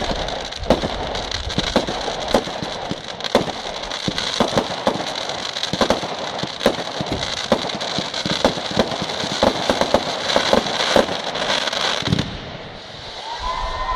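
Aerial fireworks going off: a continuous dense crackling from bursting crackle stars, broken by frequent sharp pops and bangs. About twelve seconds in the crackling stops, and a tone bending up and down in pitch comes in.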